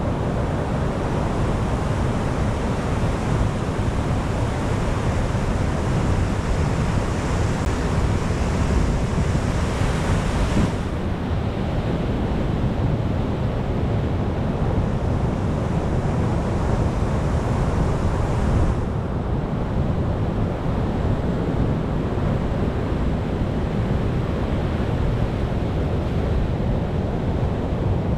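Ocean waves breaking in a continuous rush of surf with a deep rumble underneath. The higher hiss of the wash swells and then drops off abruptly about ten seconds in, and again a little before twenty seconds.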